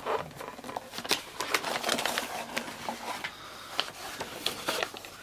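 Paper and card being handled by hand: irregular rustling with small clicks and taps as a paper envelope is taken out and held up.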